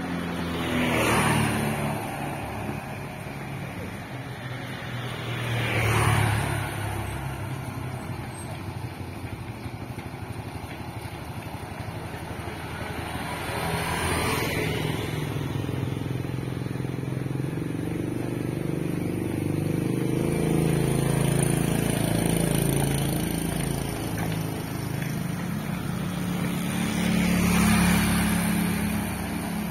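Motorbikes passing close by on the road, four times, each swelling up and fading away as it goes past. A low steady engine drone runs under the second half.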